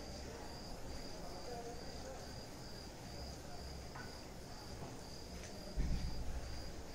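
Insect chirping, a short high note repeating evenly about twice a second, over quiet room tone. A low bump comes near the end.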